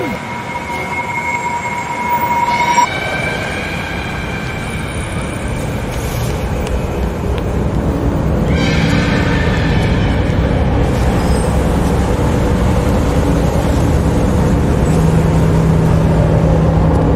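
Tense film sound design under documentary footage: a dark, noisy drone with a few held tones that slowly swells louder, opening with a falling pitch sweep.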